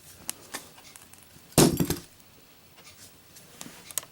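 A lit Zippo lighter dropped, its metal case hitting a hard surface with a sharp metallic clatter about one and a half seconds in, after a few light clicks.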